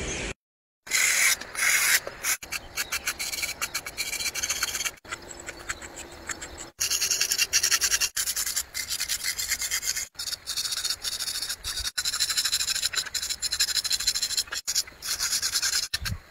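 Rapid scratching and rubbing strokes of a hand drawing on a rough concrete road surface, broken by several brief gaps.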